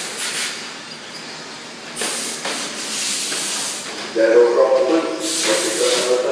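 Radio-controlled short course trucks racing on a clay track: hissing whooshes of motors and tyres that swell as the trucks pass, strongest about two seconds in and again near the end. A wavering pitched sound joins them over the second half.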